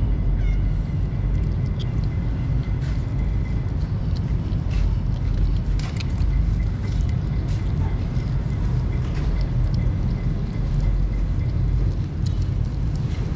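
Kittens chewing and lapping wet food close up: many small wet clicks and smacks, over a steady low rumble.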